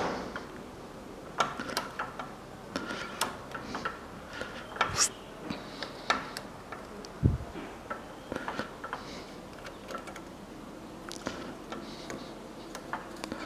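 Light, irregular metallic clicks and ticks of a piston ring being spread by hand and eased into its groove on a piston, with one duller knock about seven seconds in.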